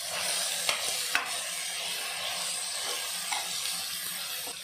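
Steel ladle stirring sliced snake gourd sautéing in hot oil in an aluminium pot: a steady sizzle, with the ladle clinking sharply against the pot twice about a second in and scraping more lightly after.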